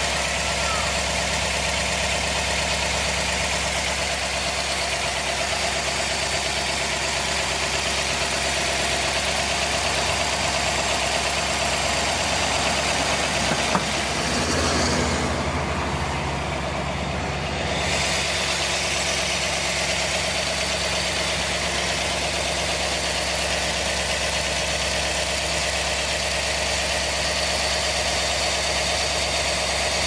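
Ford 312 cubic-inch Y-block V8 of a 1957 Thunderbird idling steadily and evenly. The sound briefly dulls about halfway through.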